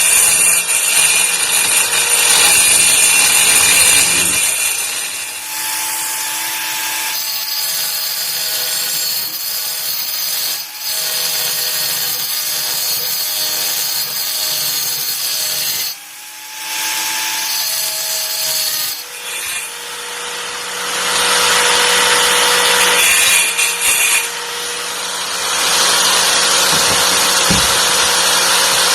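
Titanium AG710 710 W angle grinder running with a steady motor whine. Loud grinding noise comes while it bears into the work, mostly in the first few seconds and again from about twenty seconds in. Between those stretches it runs lighter and quieter, briefly dropping in level about sixteen seconds in.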